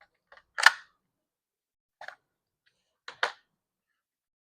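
Sharp clicks and knocks from handling a CO2 BB airgun, an Umarex HK MP5 K PDW, as it is readied to fire. There is one loud snap about half a second in, a faint click near two seconds, and a quick double click about three seconds in.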